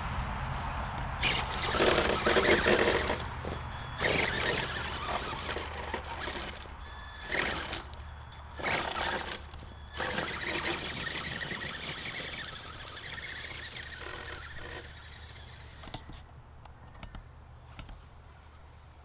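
Electric Axial SCX-10 RC scale crawler driving over loose dirt and rocks: its motor and drivetrain running, with bursts of tyres scraping and scrabbling over stones and soil. It fades as the truck climbs away up the slope.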